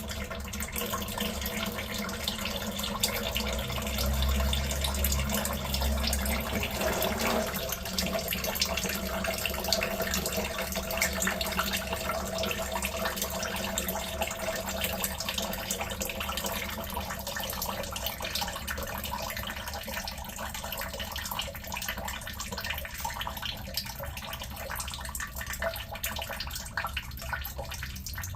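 Engine oil draining from a car's oil pan into a drain pan: a steady stream of liquid pouring and splashing, a little heavier a few seconds in.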